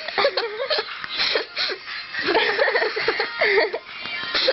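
A girl giggling and laughing several times, in short rising-and-falling bouts.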